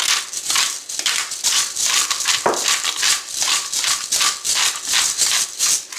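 Olde Thompson plastic black pepper grinder being twisted back and forth, grinding peppercorns in quick gritty, rattling strokes that stop near the end.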